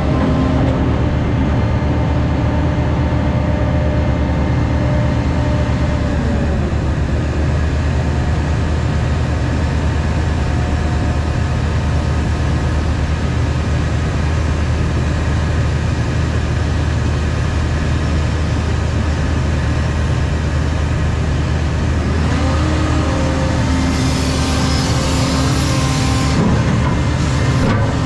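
Cat 335 Next Gen excavator's diesel engine and hydraulics running steadily. A whine glides down in pitch about six seconds in and climbs back up about 22 seconds in. A brief hiss sounds near the end.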